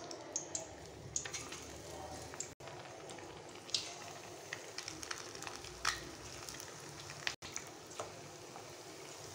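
Besan-battered egg fritters (bhajiya) deep-frying in hot oil in a kadhai: a steady bubbling sizzle with scattered sharp pops and crackles, breaking off for an instant twice.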